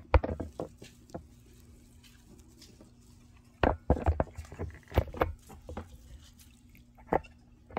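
Hands working a sphagnum-moss root ball into a small terracotta pot: rustling and scraping handling noises in short clusters, a few just after the start, a busier stretch from about three and a half to six seconds in, and one last click near the end.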